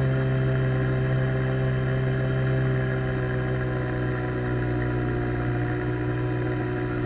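Outboard jet motor pushing an inflatable boat along, running steadily at an even pitch.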